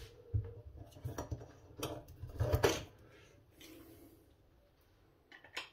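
Clicks and knocks of the sink's drain strainer and cover being handled and fitted by hand: a cluster of short knocks in the first three seconds, then two sharp clicks near the end.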